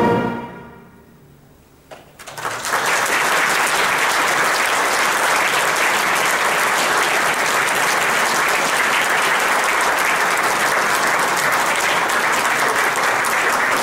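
The final chord of a wind band dies away in the hall's echo; about two seconds in, the audience breaks into applause, which keeps on steadily.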